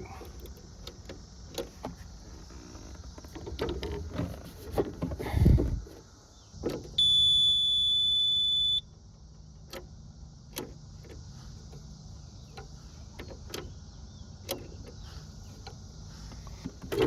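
Cab of a Yanmar ViO35-6a mini excavator: clicks and knocks of levers and switches over a steady low hum, with a louder thump about five seconds in. About seven seconds in, a high electronic warning tone sounds steadily for nearly two seconds and is the loudest sound, while the machine will not start.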